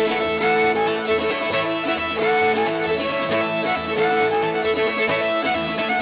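Fiddle playing a lead instrumental break between sung verses, with held and sliding bowed notes over upright bass and plucked-string backing in a live old-time Americana band.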